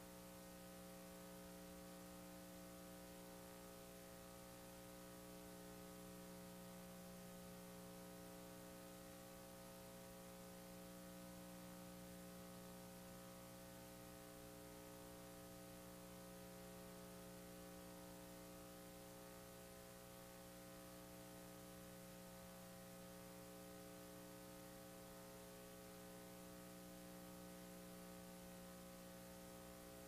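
Near silence: a faint, steady electrical mains hum with light hiss underneath.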